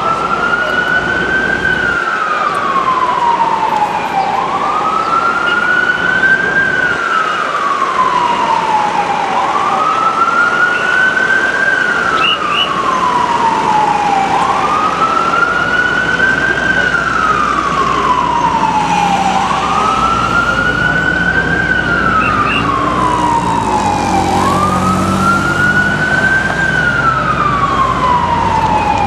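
Ambulance electronic siren on a slow wail: each cycle rises quickly and falls away slowly, about once every five seconds, over the noise of street traffic. Past the middle, a lower wavering sound and a short hiss join in.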